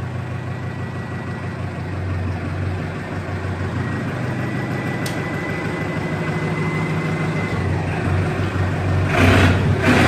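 Tractor diesel engine with a newly fitted turbocharger idling steadily, with a faint high whistle from the turbo for several seconds. Near the end come two short, loud bursts of hiss.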